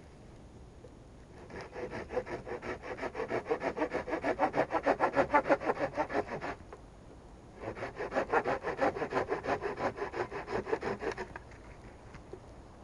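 Hand saw cutting through wood in quick back-and-forth strokes, in two runs with a pause of about a second between them.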